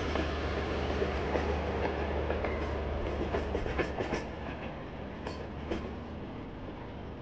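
Pakistan Railways passenger coaches rolling past, their wheels clattering over the rail joints in a quick clickety-clack. The sound drops off about halfway through as the last coach, the power van, goes by and the train moves away.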